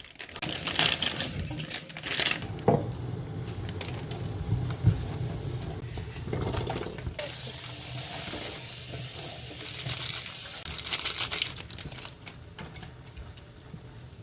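Plastic instant-noodle packaging crinkling and being torn open, with a few sharp clicks of handling, over a low steady hum.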